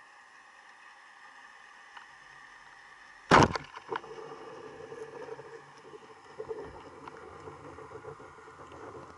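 Band-powered speargun fired underwater: a single loud, sharp crack about a third of the way in as the rubbers snap forward and send the shaft off, with a smaller knock just after. Quieter, uneven noise follows.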